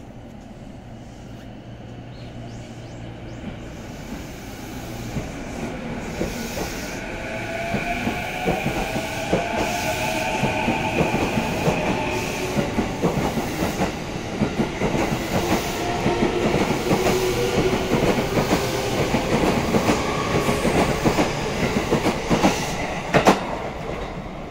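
JR East E233 series electric train pulling out and accelerating past: its traction motors whine in tones that climb in pitch, over a growing clatter of wheels on the rails. A single sharp clack stands out near the end.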